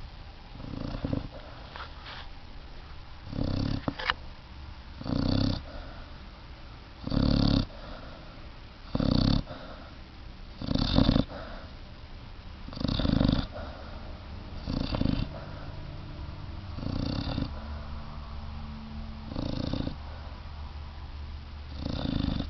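A puppy snoring loudly in its sleep, one snore about every two seconds.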